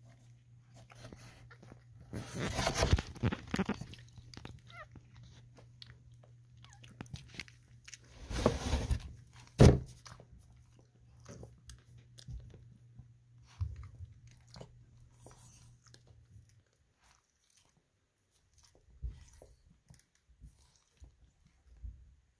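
Mother dog licking and nuzzling her five-day-old chiweenie puppies: wet mouth and licking sounds with rustling of the bedding, loudest in two noisy stretches about two and eight seconds in, with a sharp click near ten seconds. A low steady hum stops about two-thirds of the way through.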